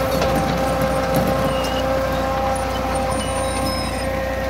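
Tractor engine running steadily as it pulls a seed drill sowing rice, a constant hum with a held whine, with light rattling and clicking from the drill's seed-metering gear and frame.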